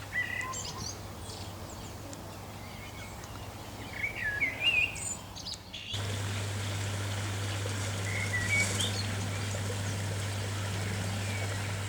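Small birds chirping and calling, in short rising and falling notes that are busiest in the first half, over a steady low hum that gets louder about halfway through.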